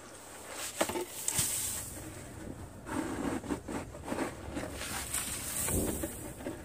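Snow shovel scraping and scooping snow on a mobile home's roof in a series of irregular strokes. Near the end a shovelful of snow slides off the roof edge and lands with a heavier whump.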